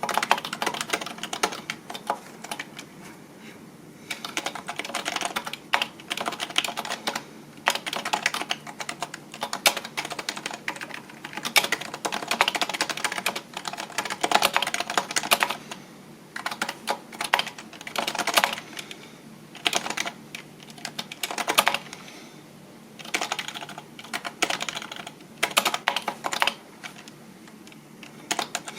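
Typing on a computer keyboard: rapid key clicks in bursts of a few seconds, with short pauses between them.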